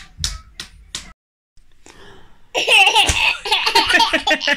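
A baby clapping a few times with small hands; then, after a brief gap, a baby laughing in loud, high-pitched giggles.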